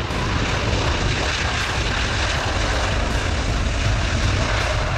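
The Airbus Beluga XL's two Rolls-Royce Trent 700 turbofan engines running as the aircraft rolls along the runway: a steady jet noise over a deep rumble.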